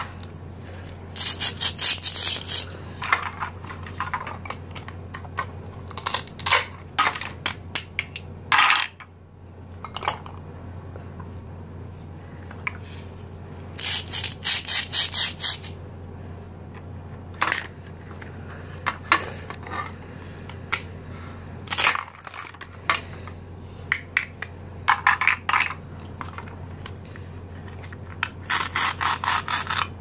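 Plastic toy fruits being cut and handled: the halves are pulled apart at their velcro joins with several short ripping sounds, among many light clicks and knocks of hard plastic pieces against each other, the plate and the board. A steady low hum runs underneath.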